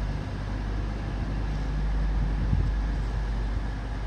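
Diesel locomotive engines running, a steady low throb.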